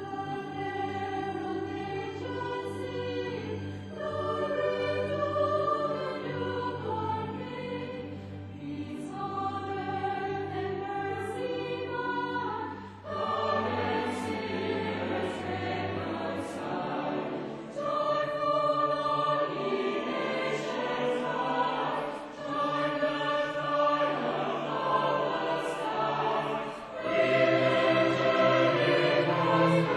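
Mixed choir singing a Christmas carol in harmony, accompanied by a string orchestra, with sustained chords and a low held bass note through the first half; the music swells louder near the end.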